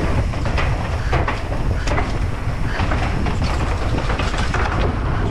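Mountain bike being ridden fast over a rough course: a steady low rumble of wind and tyres, with constant irregular clattering and knocks from the chain and frame over bumps.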